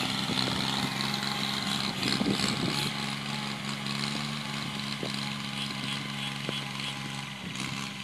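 Tractor engine running at a steady pitch as it pulls a tillage implement across a ploughed field.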